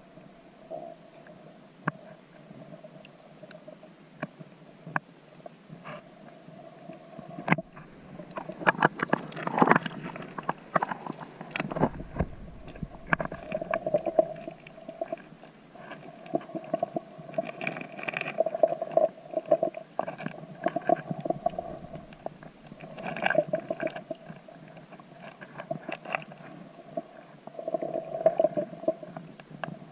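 Underwater sound picked up by the camera: gurgling water with scattered sharp clicks and an on-and-off hum, busier from about eight seconds in.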